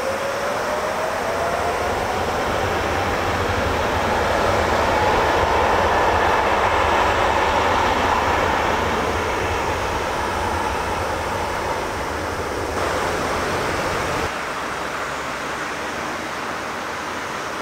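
Boeing 767 jet engines running as the airliner taxis onto the runway. A whine rises in pitch over the first few seconds above a low rumble, is loudest about six seconds in, then eases. The sound steps down abruptly about fourteen seconds in.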